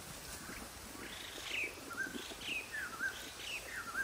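A bird calling over and over, a quick falling chirp with a little upturn at the end, about twice a second, over soft rustling and handling of leaves.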